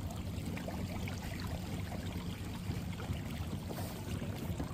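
Electric trolling motor pushing a kayak: water washing and trickling along the hull over a steady low hum.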